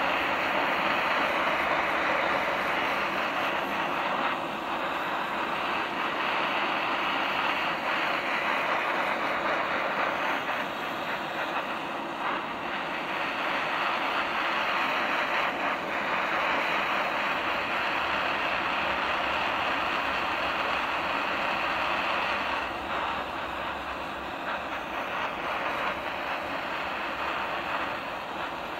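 Handheld butane torch burning with a steady hiss as its flame heats the quartz banger of a dab rig.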